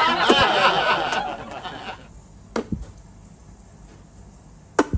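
Puffed-out cheeks struck with fists: sharp pops as the trapped air bursts out, two close together about two and a half seconds in and one near the end. Before them, a burst of laughter-like chattering fades out over the first couple of seconds.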